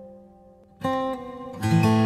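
Strummed guitar music: a held chord fades away, then a new chord is struck a little under a second in and a louder one near the end.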